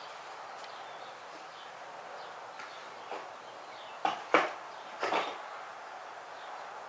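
Tools being handled: a few sharp clicks and knocks, the loudest about four and a half seconds in, over a faint steady hiss.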